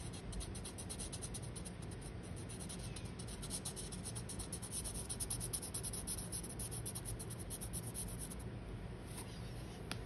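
Felt-tip art marker scratching on paper in many quick back-and-forth strokes, shading a coloured area. The strokes stop about a second and a half before the end, with a single light tick near the end.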